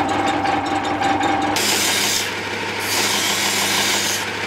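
Pillar drill running with a steady whine while drilling. About one and a half seconds in, it gives way to a narrow belt sander grinding a wooden knife handle: a harsh hiss that eases twice as the wood comes off the belt.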